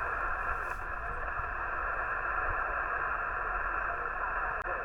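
Shortwave receiver hiss from a Yaesu FT-891 transceiver tuned to 20-metre single sideband: steady band noise filling the narrow voice passband, with faint wavering traces of weak signals under it. The noise drops out for an instant near the end.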